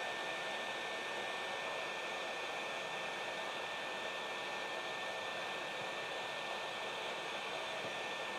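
Hot air rework station blowing a steady hiss with a thin, constant high whine, reflowing the solder under a surface-mount MOSFET injector driver so the chip settles onto its pads.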